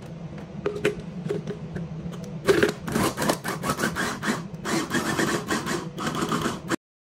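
Scraping and rubbing, with a few clicks at first and then, from about halfway in, a quick run of sharp knocks and clatters, over a steady low hum. It all cuts off suddenly near the end.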